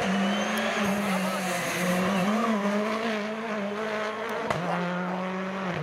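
Citroën C3 rally car's turbocharged four-cylinder engine running hard at a held, slightly wavering pitch as the car drives past.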